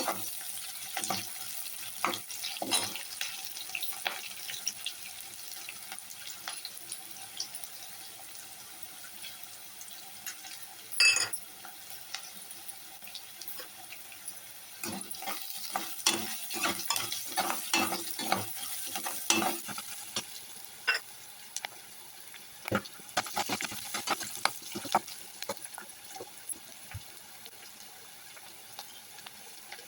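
Drumstick (sahjan) bhaji sizzling in a pan, with a spoon stirring and scraping the pan in spells and one sharp clank about eleven seconds in.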